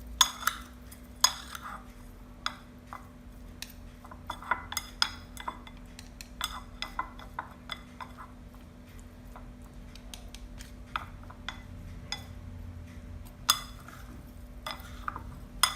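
A utensil clinking and scraping irregularly against a bowl while stirring chopped tilapia with minced shallot and seasonings, with a few louder knocks near the start and the end.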